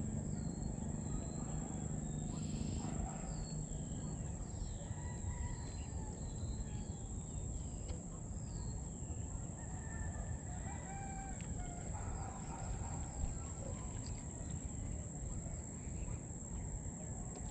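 Rural outdoor ambience: many short bird chirps and a rooster crowing, over a steady high-pitched insect drone and a low rumble of wind.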